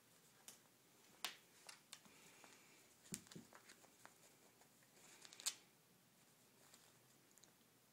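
A few light, sharp taps and rustles over a quiet room, the loudest about a second, three seconds and five and a half seconds in.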